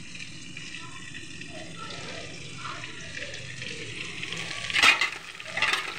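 Batter-coated paneer deep-frying in hot oil, a steady low sizzle, with two short loud noisy bursts about five seconds in and just before the end.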